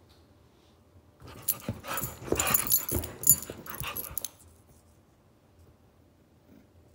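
Shih Tzu puppy and pit bull mix play-growling and scuffling as they wrestle, for about three seconds starting a second in, with a metal collar tag jingling, then they go quiet.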